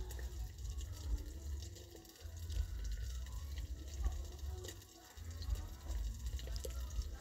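Chicken liver and gizzard frying in a thick gravy in a black kadai, sizzling and bubbling, with a steel spoon scraping and clicking against the pan as it is stirred. A low rumble comes and goes underneath.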